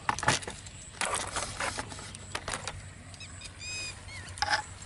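Scattered clicks and rustling handling noise, with a bird giving a few short chirps about three seconds in and again near the end.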